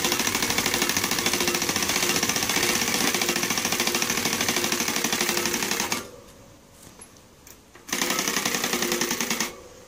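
Plastic card slapping against the spokes of a spinning bicycle rear wheel, held in a cut-down Coca-Cola bottle rigged as a fake exhaust. It makes a fast, even rattle meant to sound like a motorbike. The rattle stops about six seconds in and comes back about two seconds later for a second and a half.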